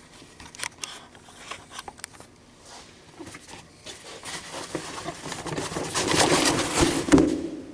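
Handling noises as gear is put back into a toolbox: scattered clicks and knocks, then a louder stretch of rustling and clattering in the second half that fades near the end.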